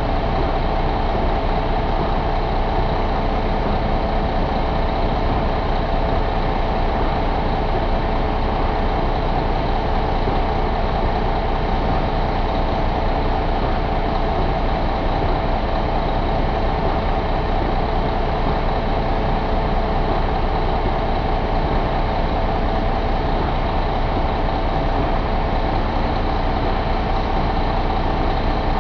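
2012 International MaxxForce 13 inline-six diesel engine idling steadily, heard close up over the open engine bay.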